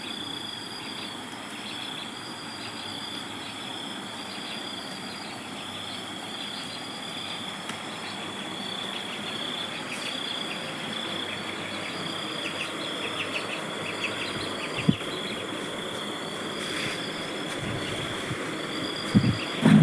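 Insects chirring steadily at a high pitch, with a faint pulsing call repeating about once a second. A few short high chirps come in the middle, and a bump or two come near the end.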